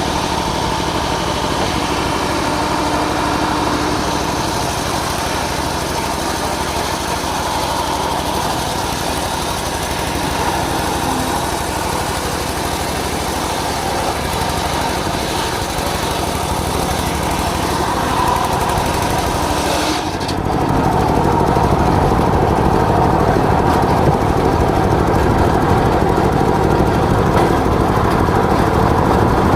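Engine-driven homemade circular sawmill running steadily. About twenty seconds in the sound changes abruptly, becoming lower, heavier and a little louder.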